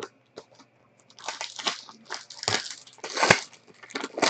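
Foil wrapper of a trading-card pack crinkling and tearing as it is opened by hand, in several rustles, the loudest about three seconds in.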